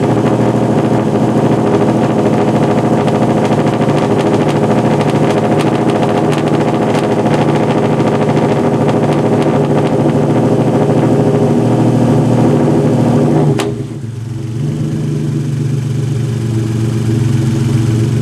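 Hyundai Genesis Coupe 3.8 V6 idling steadily just after start-up. About three-quarters of the way through there is a click, and the running note drops to a quieter, deeper idle.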